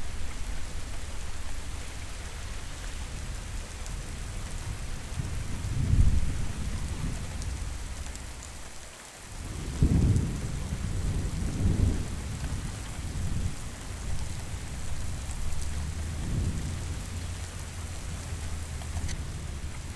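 Steady heavy rain hissing, with deep thunder rumbling about six seconds in and again for a couple of seconds after the tenth.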